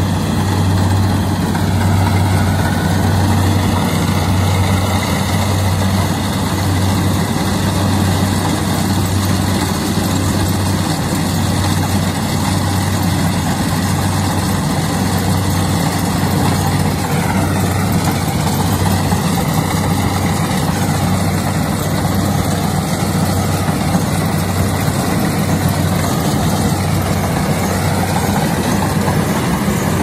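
Kubota DC-70 Plus rice combine harvester's diesel engine running steadily as the machine moves through the field harvesting rice, a continuous low mechanical drone.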